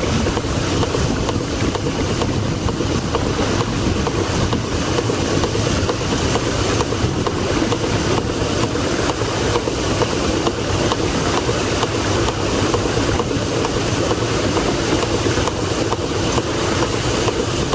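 1902 Toledo steam carriage engine running steadily under steam, a continuous mechanical rumble with a fast, even ticking beat.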